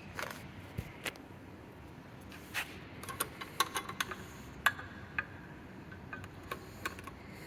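Scattered light clicks and short metallic clinks, thickest in the middle, from keys and a fire alarm manual pull station being handled. No alarm is sounding.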